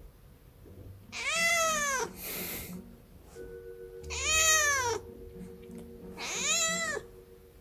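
Tortoiseshell cat meowing three times, about two seconds apart, each call rising and then falling in pitch.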